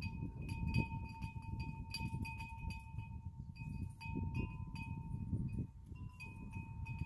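Wind chime ringing steadily, with many light clinks as its pieces strike, over wind rumbling on the microphone.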